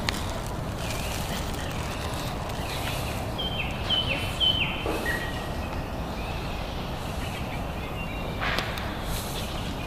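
Outdoor rumble of wind on the microphone, with a bird chirping three quick high notes about three and a half seconds in, then one lower note.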